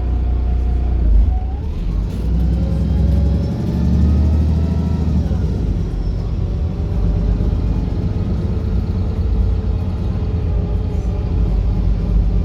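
Wright Pulsar single-deck bus running under way: a steady low engine rumble, with a whine that rises and falls in pitch over the first few seconds as it changes speed.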